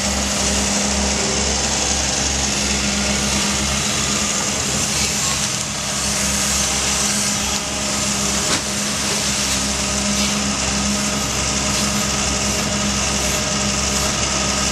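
Diesel engine of a Doosan amphibious excavator running steadily under work, with one brief knock about eight and a half seconds in.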